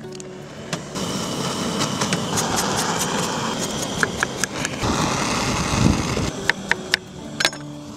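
Handheld gas blowtorch flame, a steady roar that starts about a second in, singeing the wool off a sheep's head. A few sharp scraping clicks near the end come from a serrated blade scraping the charred wool.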